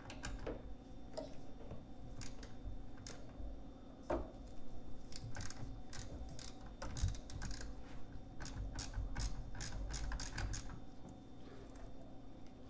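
Hand ratchet clicking in short, irregular runs as it loosens the 10 mm nut on a car's negative battery terminal.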